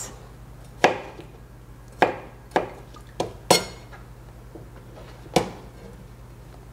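About six separate sharp clinks and knocks at uneven intervals: a metal measuring spoon against a glass mixing bowl and a knife striking a plastic cutting board as raw chicken is diced. A steady low hum runs beneath.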